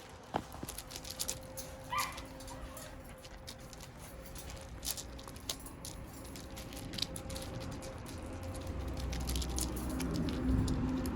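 Shiba Inu puppy moving about, with many light scattered clicks and taps and one short high whimper about two seconds in.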